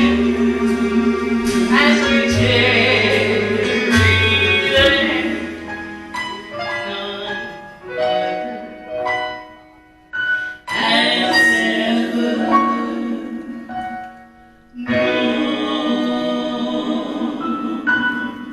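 Slow gospel hymn sung with instrumental accompaniment, long notes held with vibrato. Around the middle the music breaks into short separate phrases with brief gaps, then swells into sustained chords again near the end.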